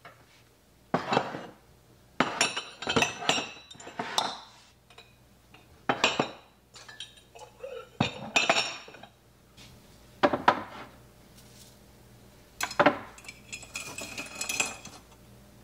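Dishes and glassware clinking and knocking as they are handled and set down in a kitchen cupboard, in about eight separate clatters, some with a brief ring.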